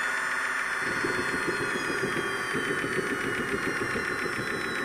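Wren 100 model turbojet partway through its start sequence, not yet running on its own. A steady high whine from the spinning turbine runs throughout, and about a second in a rough, crackling rumble joins it and continues.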